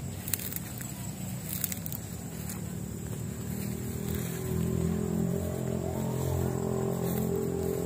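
A motor vehicle's engine running steadily, growing louder from about halfway through, over light rustling and clicks of footsteps in grass.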